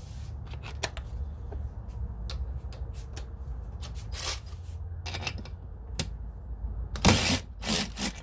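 Scattered clicks and clanks of tools being handled over a steady low hum, then two short bursts near the end as a Hercules extended-reach electric ratchet breaks loose a small fastener torqued to 20 ft-lb.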